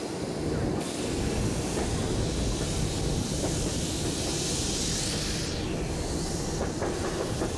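Electric tram running along the track, heard from its open upper deck: a steady rumble of wheels on rails under a rushing noise of passing air.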